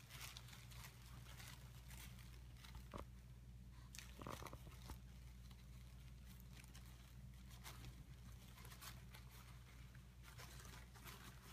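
Faint, scattered rustling and crinkling of tissue paper as a small dog noses and paws at it, over a steady low hum.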